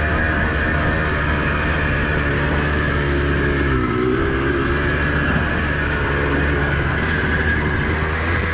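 Honda CR250R's 250cc two-stroke single-cylinder engine running under throttle as the dirt bike is ridden along a trail, its revs dipping about four seconds in and then climbing again.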